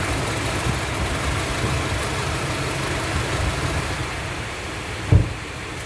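Honda CR-V engine idling with its no. 2 cylinder misfiring, which is taken to be a dead ignition coil. The sound gets quieter about four seconds in, and there is a single thump about a second later.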